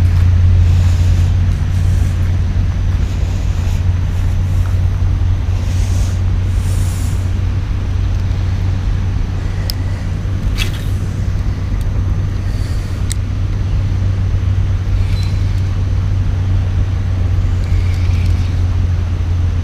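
A steady low rumble throughout. A few sharp clicks come around the middle as a spinning rod is cast and the reel is worked.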